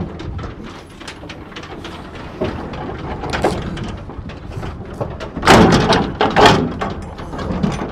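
Metal stock trailer gate being swung shut and its latch bar thrown, with rattling and clanking of metal on metal. The clanking is loudest about five and a half to seven seconds in.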